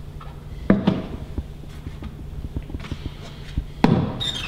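White plastic buckets knocking together as the inner bucket of a lamb milk feeder is handled and lowered into the outer bucket: two hollow knocks about a second in, then a louder knock and a short plastic squeak near the end.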